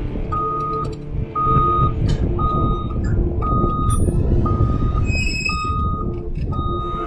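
Reversing alarm of a heavy construction vehicle sounding seven steady beeps, about one a second, over the rumble of its diesel engine. A brief higher tone sounds once about five seconds in.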